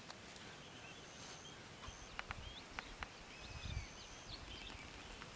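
Faint outdoor ambience: a few short high chirps, several light clicks about two to three seconds in, and a soft low thump at about three and a half seconds.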